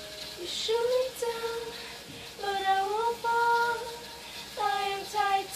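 A young girl singing unaccompanied, holding long, steady notes in about four short phrases with brief breaths between them.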